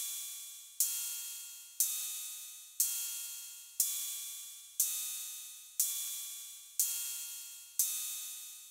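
Analog drum-machine cymbal circuit (BOSS DR-110 design) firing about once a second, eight times in all. Each strike is a sharp hissy cymbal hit with a metallic ring from mixed square-wave tones, and it fades away until the next hit.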